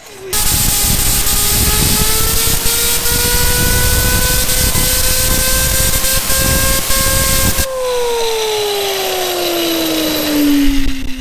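Fidget spinner driven by a blast of compressed air: a loud hiss of air with the spinner's whine rising slowly as it speeds up. About seven and a half seconds in, the air cuts off abruptly and the whine falls steadily as the spinner coasts down.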